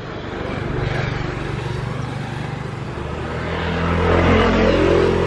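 Small motorbike engine approaching along the road and passing close by, growing louder and loudest about four seconds in.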